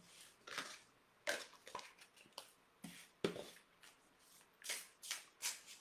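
A deck of oracle cards being shuffled by hand: a run of short, soft swishes and riffles coming at an uneven pace.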